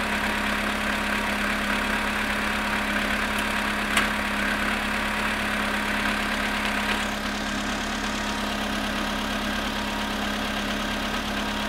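Volkswagen Polo sedan engine idling after a cold start at −7.5 °C, with the knocking the owner is recording it for. A single sharp click about four seconds in, and the sound gets slightly quieter and duller around seven seconds.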